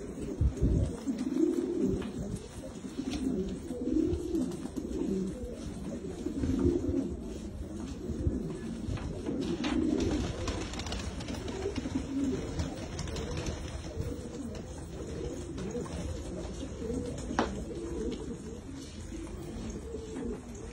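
A flock of fancy pigeons cooing, low rolling coos from several birds overlapping one after another.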